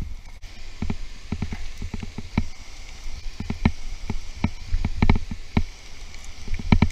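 Footsteps crunching down a steep slope of loose scree, with irregular crunches and clatters of flat stones shifting underfoot, sometimes two or three in quick succession.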